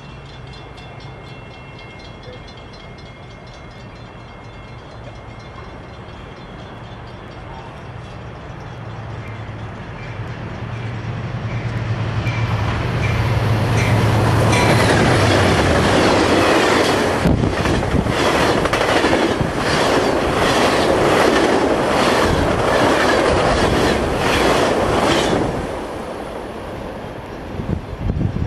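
A train passing close by. A low drone builds as it approaches, then the wheels clatter over the rail joints in a fast rhythmic clicking. The sound drops off a few seconds before the end.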